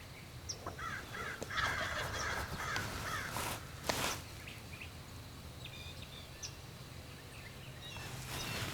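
Crows cawing: a quick series of harsh calls about a second and a half in, with two brief sharp noises just after. Faint small-bird chirps come later.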